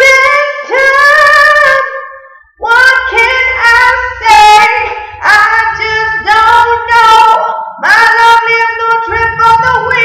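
A female voice singing an R&B melody solo, in held notes that slide and bend. It comes in several phrases of about two seconds, with short breaths between them.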